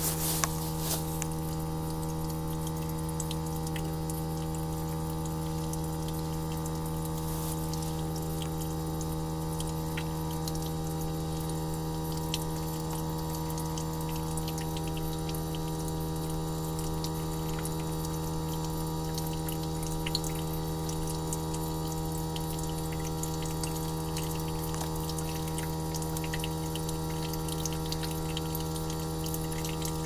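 Outdoor unit of a Friedrich M24YJ (rebranded LG) mini-split heat pump in its defrost cycle: a steady hum of several tones, with meltwater trickling and dripping off the outdoor coil.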